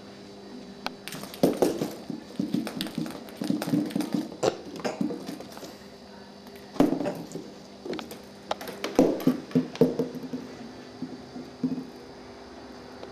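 Cat pawing at a cardboard box, heard from inside it: irregular bursts of taps, knocks and scrapes on the cardboard, with short pauses between them.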